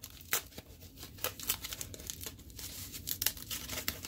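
Padded plastic packing pouches rustling and crinkling as they are handled and opened, with a string of sharp crackles.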